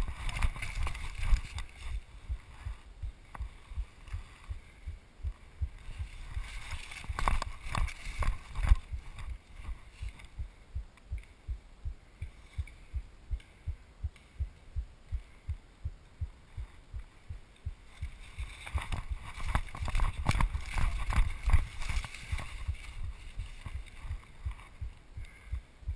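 Rapid, heavy breathing close to a head-worn camera, in regular low puffs about twice a second. Louder rustling of brush and leaf litter from the player moving comes near the start, about a third of the way in and again near the end.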